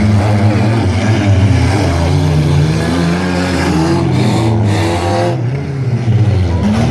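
Engines of several old wreck-race cars revving hard together on a dirt track, their pitch rising and falling as the drivers accelerate and lift. Around four to five seconds in, one car's engine climbs higher as it passes close, then falls away.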